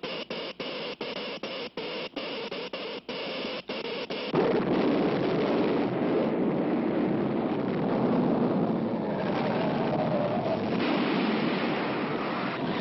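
Cartoon sound effects of an electric earthquake machine chattering in rapid pulses, about three a second. About four seconds in, a loud continuous rumbling noise takes over: the induced earthquake.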